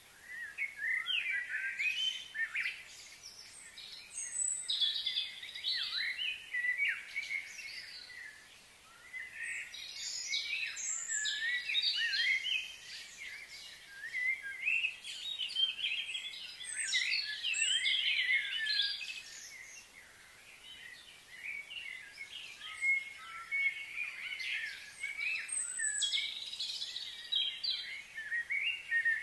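Outdoor birdsong: several birds chirping and singing in overlapping bouts of short rising and falling notes, with a brief lull about eight seconds in.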